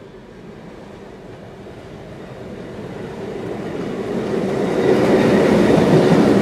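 EMD G16 diesel locomotive with its 16-cylinder two-stroke engine approaching and passing close by, the engine rumble and wheel noise on the rails growing steadily louder and loudest about five seconds in as the locomotive goes by.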